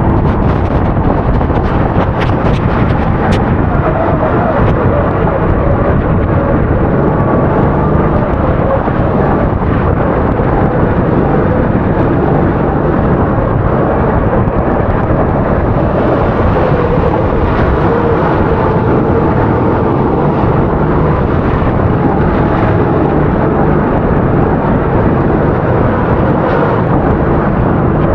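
270 cc four-stroke racing kart engine running continuously under load, its pitch slowly rising and falling with the throttle, over a steady rushing noise.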